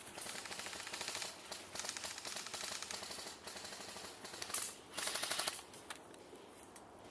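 Airsoft guns firing on full auto: rapid strings of sharp clicking shots, fainter through the first few seconds, then two louder bursts about two-thirds of the way in.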